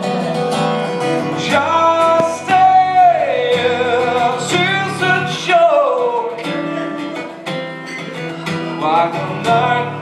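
Live song: strummed guitar under a singer holding long notes that slide down in pitch a couple of times.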